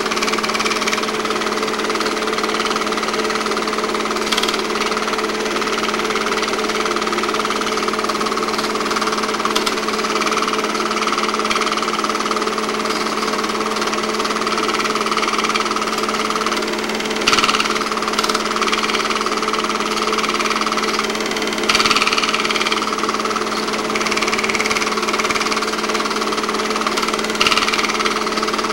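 8mm film projector running: a steady mechanical hum with a few brief, sharp clicks scattered through it.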